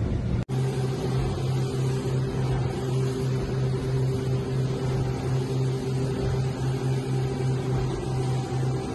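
Twin Honda four-stroke outboard motors running steadily at speed, a constant low drone over the rush of wake water and wind. The sound breaks off for an instant about half a second in, then resumes unchanged.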